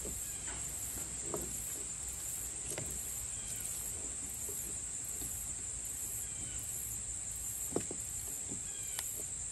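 Steady high-pitched insect drone, with a few light clicks as small metal carburetor parts (throttle slide, spring and cable end) are handled and fitted together; the clearest click comes near the end.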